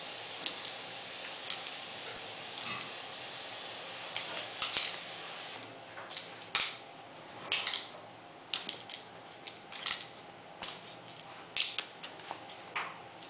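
A Yorkshire terrier's claws clicking and scrabbling on a tiled floor as it dashes about, in irregular short clicks and scuffs, several close together at times.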